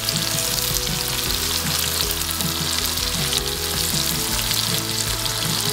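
Sliced bell peppers, red onion and mushrooms sizzling steadily in butter and olive oil in a hot wok-style disc pan.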